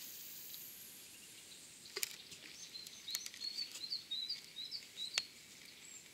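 A small songbird chirping in quick, short, high notes over a quiet riverbank background, with a few sharp clicks in between, the loudest near the end.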